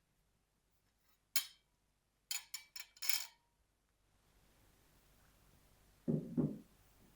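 Kitchenware clinking: one sharp clink about a second and a half in, then a quick run of clinks around the three-second mark. Near the end come a couple of duller, lower knocks.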